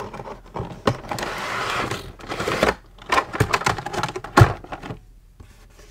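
Packaging of a small manual die-cutting machine being opened by hand: rustling and scraping with several sharp knocks and clicks, the loudest about four and a half seconds in.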